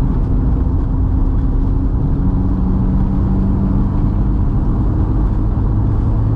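VW Mk2 Golf's turbocharged 1.8-litre four-cylinder engine running under way with road noise, the engine note holding steady, then dropping to a lower pitch about two seconds in and again near the end.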